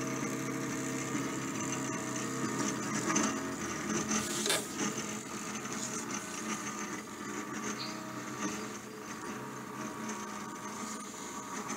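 Stepper motors and belt-driven gantry of a large-format 3D printer moving its print head in a dry run without filament: a steady mechanical whir with several steady tones, and a brief louder rattle about four and a half seconds in.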